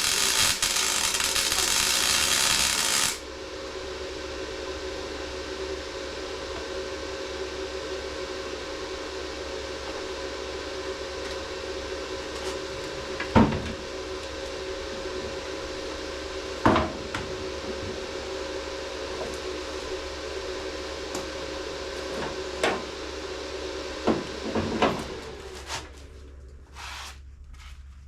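A welder's arc crackles loudly on car sheet metal for about three seconds, then cuts off sharply. A steady hum follows, with a few sharp knocks of metal tools.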